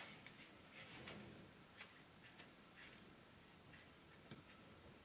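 Faint, scattered light clicks and taps of a graphics card and its backplate being handled, over near-silent room tone, with one sharper click right at the start.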